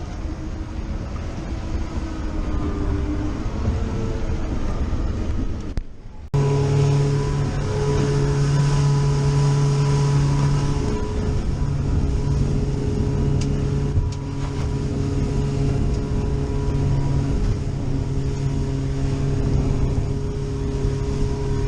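Motorboat engine running at steady revs under way, with wind and water noise. About six seconds in, the sound cuts to a louder, steady engine drone.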